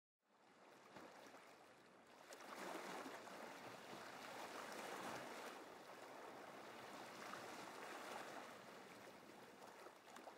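Faint sea waves washing, fading in from silence and swelling and ebbing slowly every few seconds.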